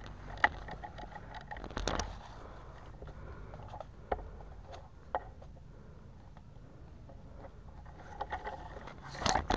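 Brush and leaves rustling against an airsoft player's gear, with a few sharp clicks or snaps, the loudest about half a second in, and a denser burst of rustling near the end.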